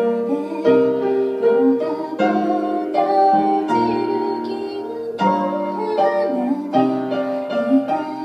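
Grand piano playing a slow song of chords and melody notes, with a woman's voice singing along.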